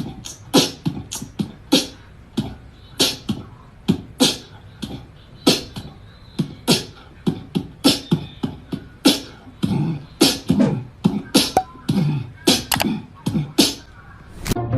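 A run of irregular sharp clicks and pops, about two or three a second, many with a dull low thump under them.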